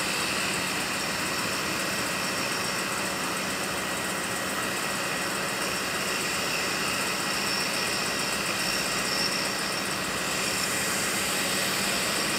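Steady running noise of track-maintenance machinery: the crew's rail service truck and its equipment at a work site on the rail, holding an even level without starts or stops.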